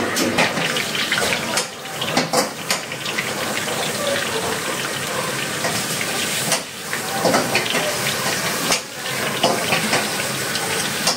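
Hot oil sizzling and crackling in a wok as crackers deep-fry, a continuous hiss with fine pops that dips briefly a few times.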